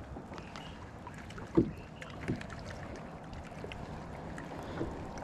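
Light knocks and handling noise in a fishing kayak over a steady faint wash, the loudest a single sharp thump about a second and a half in.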